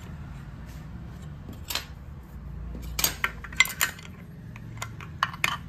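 Steel spanners and other small metal parts of a circular saw clinking as they are picked up and handled: a scatter of sharp metallic clicks, thickest about halfway through.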